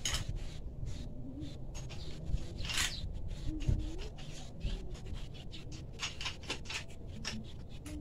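A broken angle grinder being handled and fitted at a metal bench vise: scattered light scrapes and clicks of metal, with one louder rasping scrape about three seconds in.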